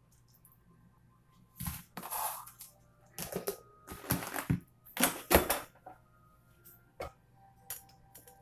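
Kitchen clatter as dishes, a utensil and an air fryer basket are handled: after a short quiet start, a quick run of clacks, knocks and scrapes for about four seconds, then a few separate sharper clicks near the end.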